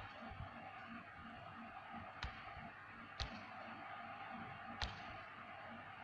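Neodymium magnet balls snapping and clicking against each other in a hand, four sharp separate clicks a second or more apart over a faint steady hiss.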